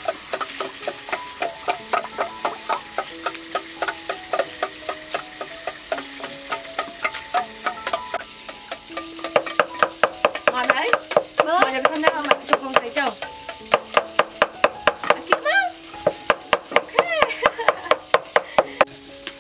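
A kitchen knife chopping fish flesh into paste on a round wooden chopping block, in steady rapid strokes of about three a second that get faster and louder about nine seconds in. Background music with held melody notes plays along.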